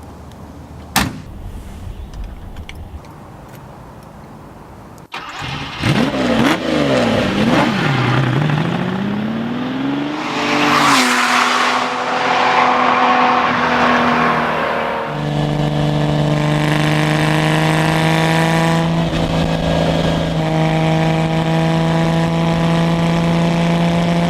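1970 Lamborghini Miura S's V12 engine. After a single sharp click about a second in, the engine blips up and down a few times, then climbs in pitch as the car accelerates. It then runs at a steady pitch, stepping to a higher steady pitch about two-thirds of the way through.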